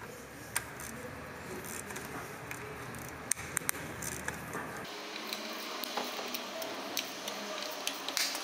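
Snap-on hand ratchet working the water pump bolts: scattered light metal clicks and taps, with a quick cluster of sharper clicks about three and a half seconds in.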